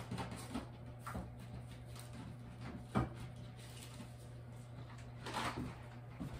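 Off-screen knocks and bumps of someone rummaging through kitchen cupboards for a boxed food item, with one sharp knock about three seconds in and a rustle near the end, over a steady low hum.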